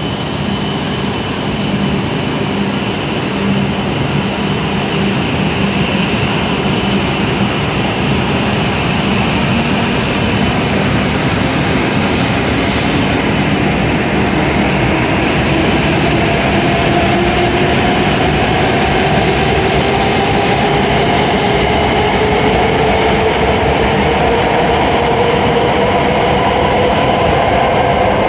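W7 series Shinkansen pulling away from the platform and accelerating: a motor whine rises steadily in pitch through the second half, over the steady rumble of the train moving along the track.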